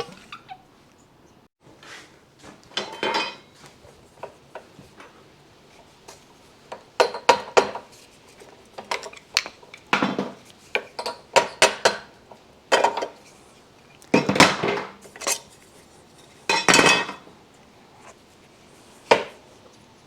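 Metal motorcycle fork parts and hand tools clinking and clanking as the front fork is taken apart, in irregular sharp knocks with gaps between them.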